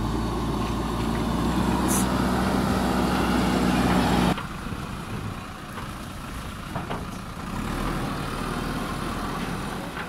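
JCB backhoe loader's diesel engine running under load, growing louder as it drives with a loaded front bucket. About four seconds in the sound drops abruptly to a quieter, steadier running. There is a short high squeal about two seconds in.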